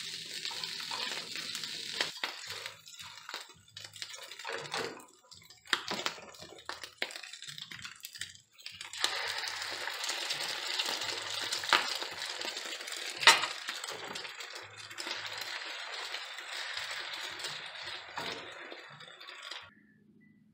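Food frying in a nonstick pan: a sizzle, with a spatula scraping and stirring through the food and sharp clicks of the utensil against the pan. About nine seconds in the sizzle turns steadier as beaten egg goes into the pan, and two louder clacks follow.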